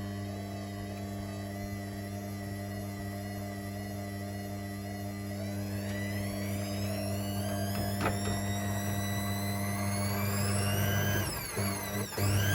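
Hoover H3W69TME washing machine's drum motor whining steadily higher in pitch as the drum speeds up, over a steady hum. The sound dips out twice briefly near the end, then returns louder.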